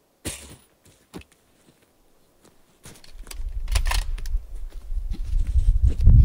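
Clothing and a shooting mat rustle, with a couple of knocks, as a person kneels and lies down prone behind a rifle. From about three seconds in, a loud, uneven low rumble of buffeting on the microphone sets in.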